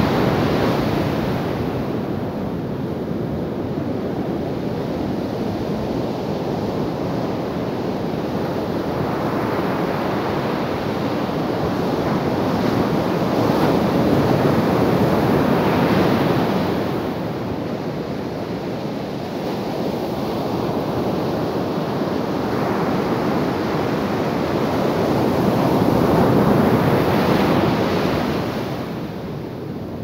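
Ocean surf breaking and washing up a sandy beach: a continuous rushing wash that swells louder roughly every thirteen seconds as a wave breaks, then eases off.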